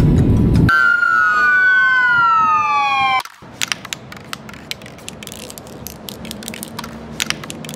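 A loud low rumble cuts off under a second in and gives way to a siren-like tone of several pitches gliding downward together for about two and a half seconds. The tone stops abruptly and is followed by faint scattered clicks over a low hum.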